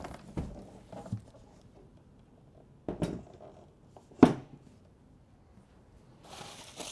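Handling sounds from unpacking a 3D printer and its cardboard box: two sharp knocks, the louder about four seconds in, then a short rustle of packaging near the end.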